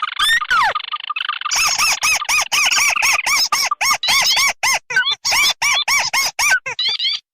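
Bird-lure recording mixing the calls of the ruddy-breasted crake (tikusan merah) and the tikusan putih. It opens with a dense, buzzy trill and then turns into a fast run of short up-and-down notes, about four a second, several overlapping, with abrupt cuts between looped sections.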